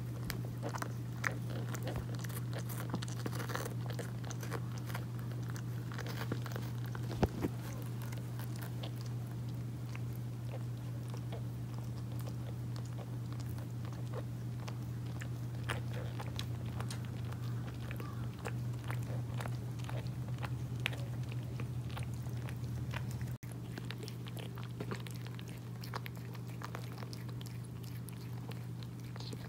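Calico mother cat licking and chewing at her newborn kittens just after the birth: a stream of small wet clicks and crunches, over a steady low hum.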